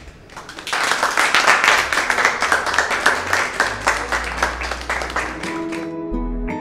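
A small group applauding with fast, loud clapping. Near the end the clapping fades out and soft guitar music begins.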